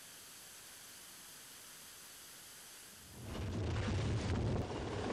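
Faint steady hiss, then about three seconds in a loud, rough low rumble starts up: a military helicopter hovering close overhead.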